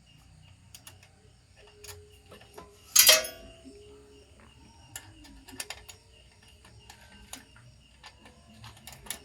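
Scattered light clicks and taps of hard objects being handled, with one loud sharp clatter about three seconds in.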